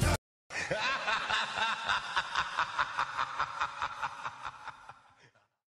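A person laughing: a long run of quick, even "ha" pulses, about five a second, that slowly fades out.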